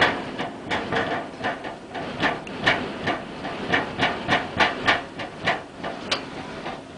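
Storm wind and rain hissing, with a run of sharp, irregular knocks, about two or three a second, of something rattling and banging in the hurricane gusts.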